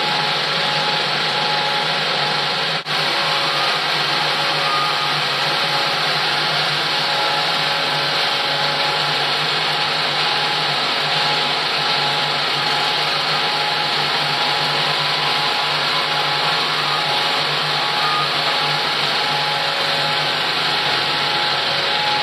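Cinemeccanica Victoria 5 35 mm film projector and its platter system running: a steady mechanical whirr with a few steady hum tones in it.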